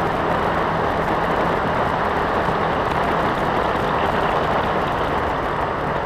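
A vehicle driving steadily along a dirt road, with continuous tyre-on-dirt and engine noise and no sharp changes.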